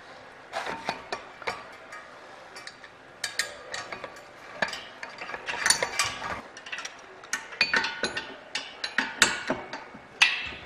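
Irregular light metal clinks and clicks of small steel bolts and nuts being handled and set into the steel caliper mount plate on a landing-gear axle.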